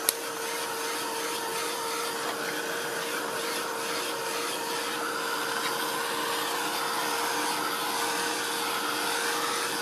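Handheld hot-air heat tool running steadily, a constant motor hum over the rush of blown air, drying wet acrylic paint on card.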